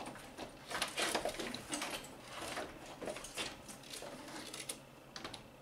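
Plastic radiator/condenser cooling fan assembly scraping and knocking against the surrounding parts as it is worked up and out of the engine bay by hand: a run of irregular scrapes and clicks, with a longer scrape about a second in.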